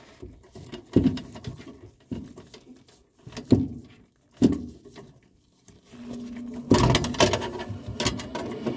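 A screwdriver knocking and scraping against a screw head and a sheet-metal igniter bracket as a furnace's hot surface igniter mounting screw is driven in: four separate knocks, then a denser run of clatter and rubbing over the last few seconds.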